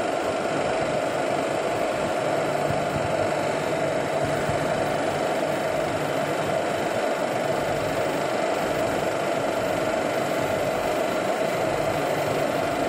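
Railway locomotive idling close by, a steady mechanical hum with several constant tones.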